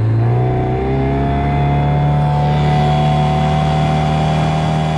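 Mercury outboard motor running under way at speed. Its pitch rises a little in the first second, then holds steady.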